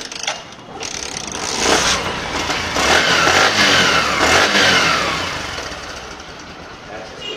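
Bajaj Platina 110 motorcycle's single-cylinder engine starting and being revved several times, its pitch rising and falling. It drops back toward idle near the end.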